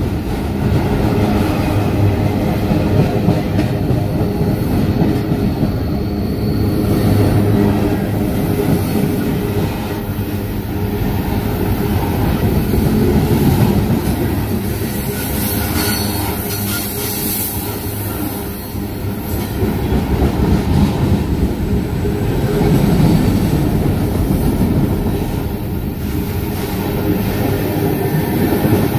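Freight train cars rolling past on the adjacent track: a steady, loud rumble with the clatter of wheels on rail.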